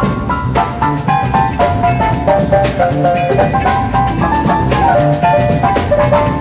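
Funk band playing: a steady, busy drum-kit groove under electric guitar, keyboard and horn riffs.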